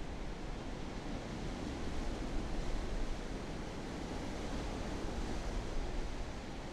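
Ocean surf: a steady rushing wash of breaking waves, a little louder a couple of seconds in.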